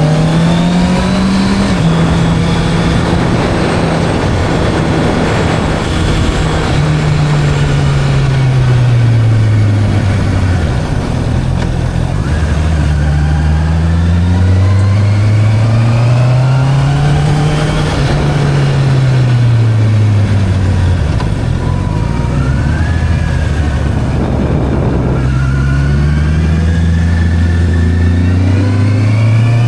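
Sport motorcycle engine on the move, its pitch climbing through the gears as it accelerates and dropping as it slows, several times over, with steady cruising stretches between.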